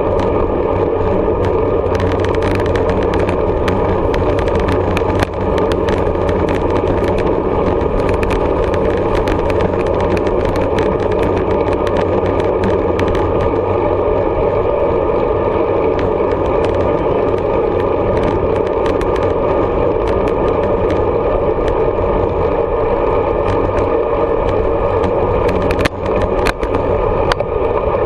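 Steady road and wind noise from a moving road bicycle, picked up by a camera mounted on the bike, with frequent small rattles and clicks from bumps in the road surface.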